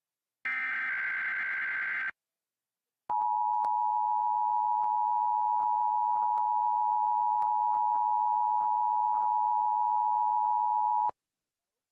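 Emergency Alert System activation: a burst of SAME header data, a buzzy digital warble, in the first two seconds, then after a second of silence the EAS two-tone attention signal (853 and 960 Hz) holds steady for about eight seconds, with faint crackles, and cuts off sharply. It marks the start of an alert, here a tsunami warning.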